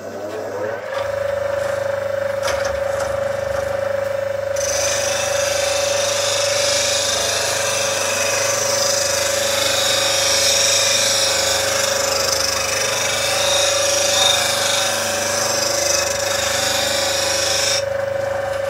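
Axminster slow-running bench grinder spinning up to a steady hum in the first second. From about five seconds in, a spindle gouge held in a sharpening jig is ground against the wheel, a steady grinding hiss over the hum, which stops shortly before the end.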